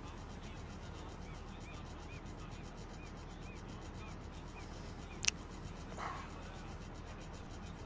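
Quiet room tone with a steady low hum. A faint high chirp repeats about two times a second for roughly three seconds, and a single sharp click comes about five seconds in.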